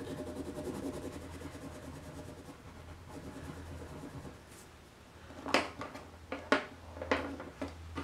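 Wax crayon rubbing on paper in quick back-and-forth strokes, colouring in a small area. Near the end come a few light clicks and knocks as crayons are put down and picked up.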